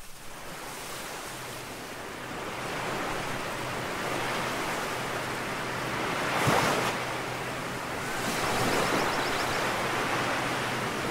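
Ocean surf washing onto a sandy beach: a steady rushing that grows louder, with waves breaking about six and a half seconds in and again near nine seconds.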